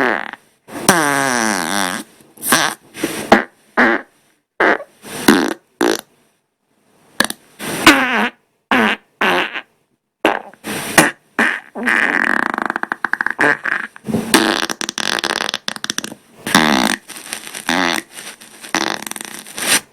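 Human farts edited back to back, about two dozen. Most are short; a few are longer and waver in pitch, and they are separated by brief silences.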